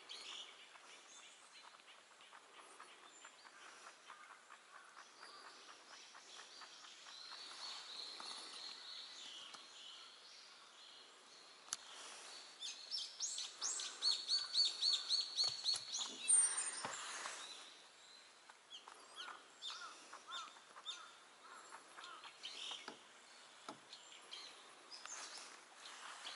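Wild birds chirping and calling, with a louder run of quick repeated high notes about halfway through.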